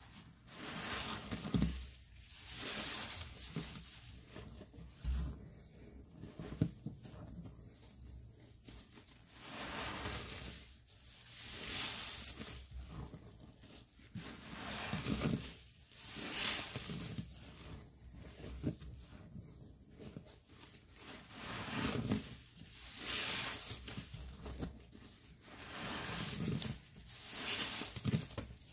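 Soapy sponges squeezed and squished by gloved hands in a basin of thick foamy cleaning solution. Wet squelching and crackling suds come in slow repeated squeezes, a swell every two to three seconds.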